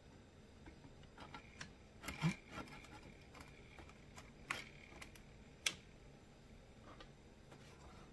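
A handful of light clicks and knocks from hand work on a Stihl handheld leaf blower's plastic housing as it is taken apart with a hand screwdriver; the loudest knock comes a little over two seconds in.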